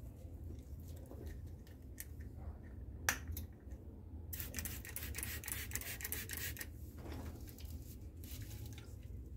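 Trigger spray bottle spraying liquid degreaser onto a bicycle's rear cassette and derailleur: a few short spritzes and a sharp click about three seconds in, then a hiss of quick repeated sprays lasting about two seconds.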